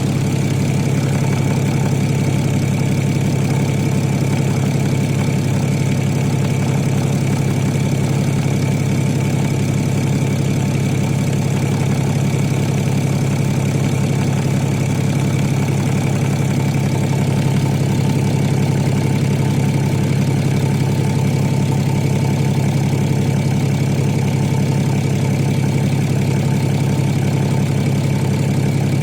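BMW N57D30 3.0-litre inline-six diesel idling steadily, with a knock from the rear of the engine near the automatic transmission.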